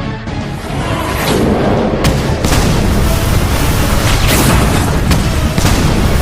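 Animated-action blast sound effects: a rumbling roar that swells up about a second in and stays loud, with several sharp cracks of impact on top, over music.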